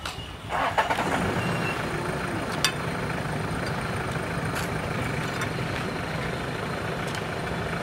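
A motor engine running steadily in the background, getting louder about half a second in and then holding level, with a single sharp click a little before the three-second mark.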